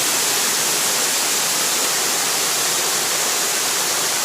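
Waterfall: falling water making a loud, steady rushing noise.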